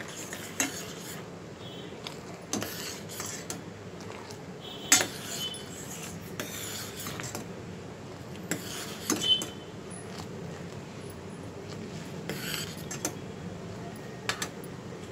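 Steel ladle clinking and scraping against a stainless steel pot while stirring boiling milk. There are about a dozen sharp metallic clinks scattered irregularly, a few of them ringing briefly, over a steady low hiss.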